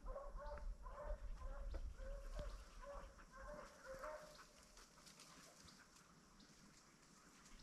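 A pack of deer hounds in full cry on a running trail, heard faintly at a distance: a run of short, pitched bays about two a second that fade out about four seconds in.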